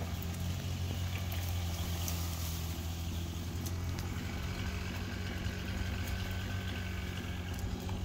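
Steady low hum of an engine running evenly, with a few faint clicks over it.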